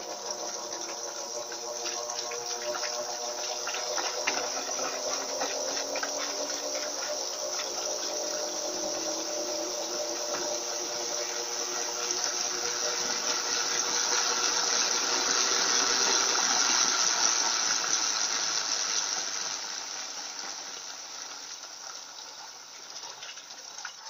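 Electrolux LTE 12 top-loading washing machine running with a load of microfibre blankets: a steady motor hum with water sloshing in the tub. It grows louder towards the middle and dies down over the last few seconds.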